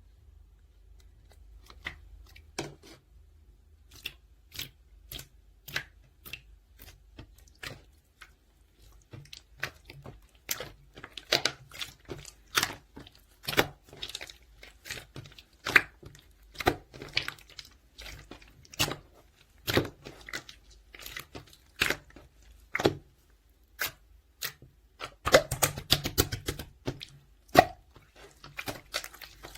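Pink clear slime being pressed and worked by hand, giving irregular sharp clicks and pops. They are sparse at first, come faster from about ten seconds in, and run together into a dense crackle near the end.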